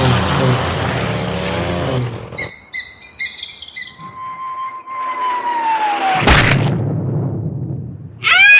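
Cartoon sound effects. A motor runs and cuts out about two seconds in, followed by a few bird chirps. Then comes a long falling whistle that ends in a sudden loud crash about six seconds in, with a rumble dying away after it.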